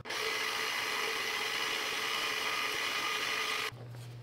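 Milling machine running with a small end mill cutting a slot into a wooden handle block: a steady high whine with several steady tones, which stops abruptly near the end.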